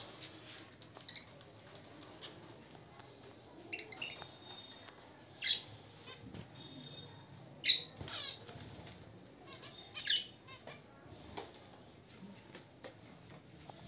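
Aviary birds, budgerigars and finches, giving short sharp chirping calls: about half a dozen separate calls, the loudest about eight seconds in.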